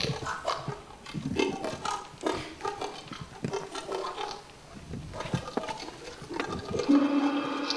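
Experimental performance soundscape of scattered clicks, scrapes and short pitched noises, then a steady held tone that begins about seven seconds in.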